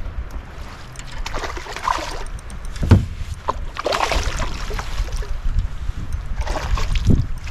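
Wind buffeting the microphone over small waves lapping at a kayak's hull, with a sharp knock about three seconds in and another near the end.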